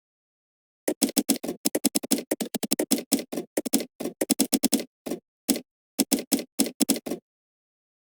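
Computer keyboard typing: a fast run of short keystrokes starting about a second in, then a few scattered strokes, stopping about a second before the end, with dead silence between runs.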